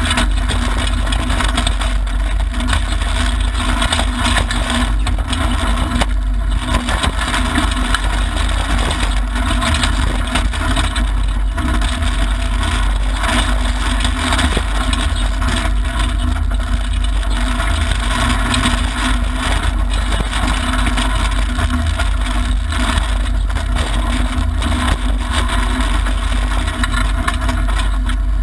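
Mitsubishi Lancer Evolution IX rally car at speed on a gravel stage, heard from inside the cabin. Its turbocharged four-cylinder engine runs hard under a loud, steady din of tyre and gravel noise, with a few brief dips.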